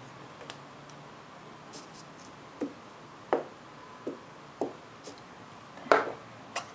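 Light, separate taps and knocks as a glue stick is handled and pressed against paper on a wooden tabletop: about seven short knocks spread unevenly, the loudest about six seconds in.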